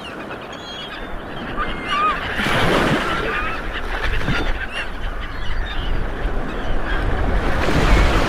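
Sea water washing and sloshing, swelling about a third of the way in and again near the end, with many short, high squeaky calls scattered over it.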